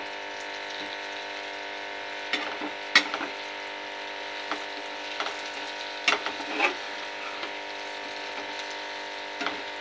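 Sliced potatoes sizzling steadily as they fry in oil and spices in a steel pan. A metal spatula scrapes and clinks against the pan several times as they are stirred, loudest about three seconds in.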